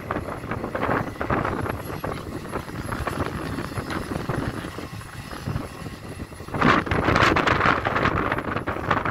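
Hidromek 410 crawler excavator working: diesel engine and hydraulics under load as soil pours from the bucket into a dump truck's bed, then louder from about six and a half seconds in as the bucket digs into the ground.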